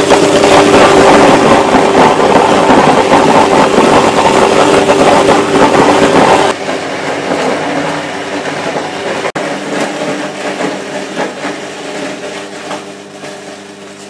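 Electric apple mill running and shredding whole apples, a loud, dense crunching over a steady motor hum. About six seconds in it drops sharply to a quieter running hum with lighter grinding that fades toward the end.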